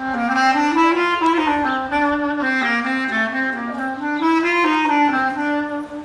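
Solo bass clarinet playing a slow melodic phrase, one note at a time, rising and falling in pitch; the phrase begins at the start and ends just before the close.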